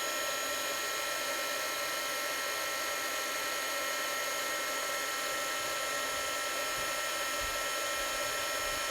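Handheld craft heat tool running steadily, blowing hot air with a constant whine, heating a mixed media piece to dry it and melt embossing powder.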